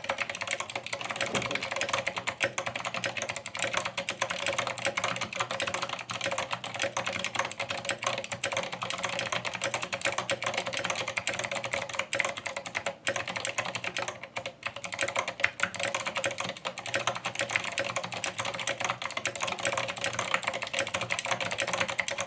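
Fast, continuous typing on a tenkeyless GMMK mechanical keyboard with Aliazstotle switches (Aliaz housings, Aristotle stems, Gateron yellow springs) and SA-profile keycaps, with a couple of brief pauses about halfway through.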